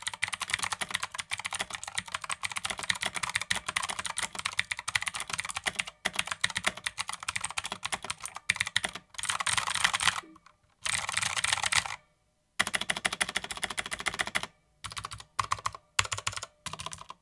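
Typing on a Redragon Kumara K552 mechanical keyboard: a fast, continuous stream of key clicks for about the first nine seconds, then several short bursts of typing with brief pauses between them.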